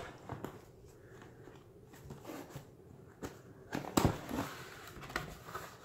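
Cardboard shipping box being opened by hand: scattered crackles, rustles and knocks of the cardboard flaps. The loudest knock comes about four seconds in.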